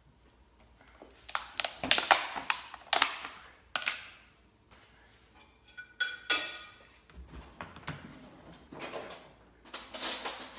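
Kitchen handling sounds: a run of sharp knocks and clatter of containers and utensils, a brief rasping scrape about six seconds in, then more knocks near the end.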